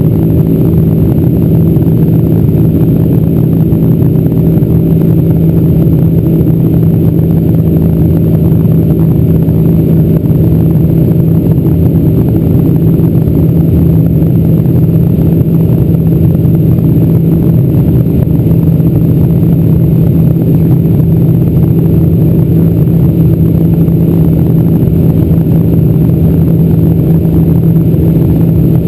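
Cabin noise of a Boeing 747-406 in its climb: the engines and airflow make a loud, steady drone with a constant low hum.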